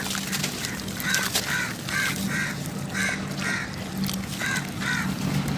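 A bird calling over and over, about nine short calls roughly half a second apart, over a steady low hum and faint crackling.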